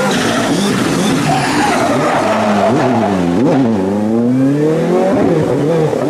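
WRC2 rally car's turbocharged engine revving hard. Its pitch jumps sharply up and down a few times near the middle, then climbs steadily as it accelerates and drops again near the end.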